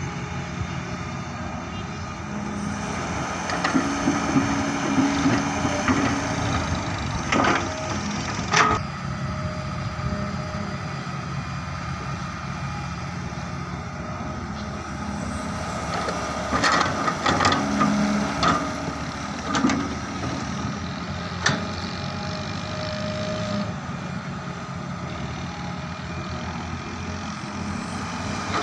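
Diesel excavator engine running steadily while loading mud into a tractor trolley, with a few sharp knocks partway through and again later.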